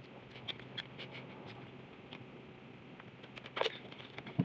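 Faint eating sounds: scattered small clicks and smacks from chewing a large mouthful of food, with a slightly louder crackle about three and a half seconds in as a plastic water bottle is handled.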